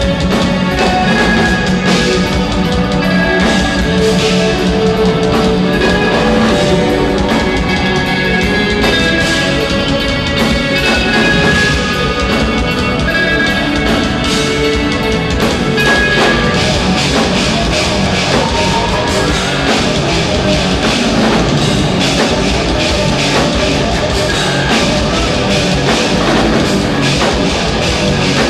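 Instrumental progressive metal played live by a band: electric guitars over a drum kit, loud and continuous, with no vocals.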